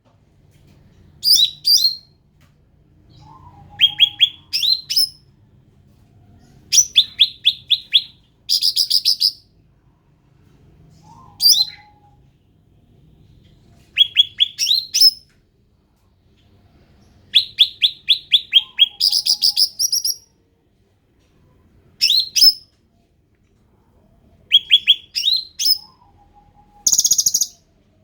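Cucak ranting singing: short phrases of rapid, repeated high chattering notes every two to three seconds, with a harsher, buzzier call near the end.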